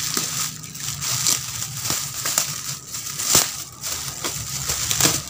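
Thin black plastic bag crinkling and crackling as it is handled and pulled open by hand, an irregular run of sharp crackles with a few louder snaps.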